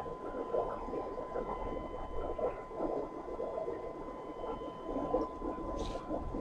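Aquarium water bubbling and trickling, a busy, flickering gurgle, with a faint steady high tone behind it.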